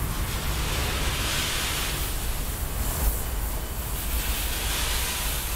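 Freight train's last cars, a tank car at the rear, rolling past: a steady rumble of wheels on rail with wind on the microphone. There is a single sharp clack about three seconds in.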